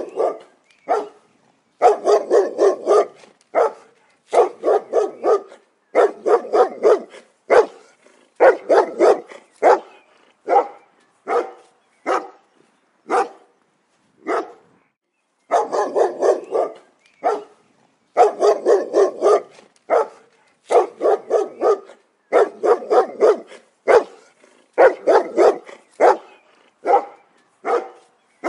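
A dog barking over and over, in quick runs of several barks separated by short pauses.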